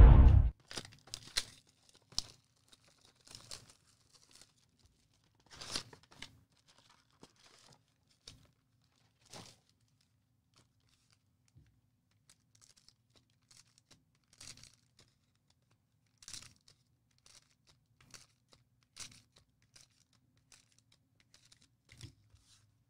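Card-pack wrappers and packaging crinkling and tearing, in short scattered rustles every second or two.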